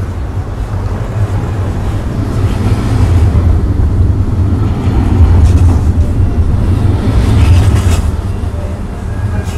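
Added street ambience: the low rumble of a passing vehicle, swelling in the middle and easing off near the end.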